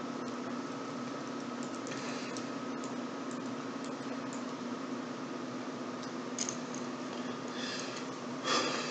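Steady low electrical hum and hiss with a few faint, scattered clicks from a computer mouse, then a short breathy noise near the end.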